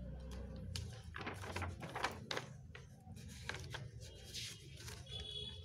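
Sheets of a paper drawing book rustling as pages are turned and folded back by hand, in several short bursts of rustling, over a low steady hum.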